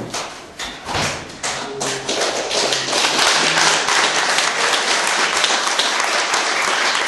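A small audience clapping: a few scattered claps at first, thickening into steady applause after about three seconds.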